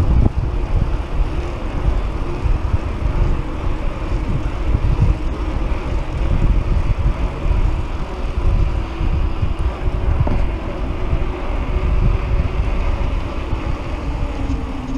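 Wind buffeting the microphone of a bike-mounted camera, a low uneven rumble, over the hum of mountain-bike tyres rolling on a concrete path.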